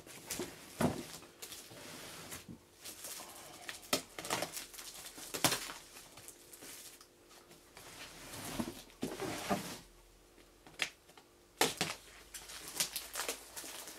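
Plastic film and packing tape being slit with a box cutter and peeled off a cardboard box: irregular crinkling, tearing and sharp clicks and taps.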